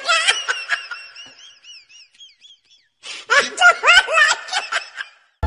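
A person laughing hard in a high voice. The laugh trails off over the first couple of seconds, then breaks out again loudly after a short pause.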